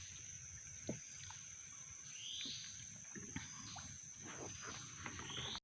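Forest insects keeping up a steady high drone, with a short rising call repeating about every two and a half seconds and a couple of faint knocks.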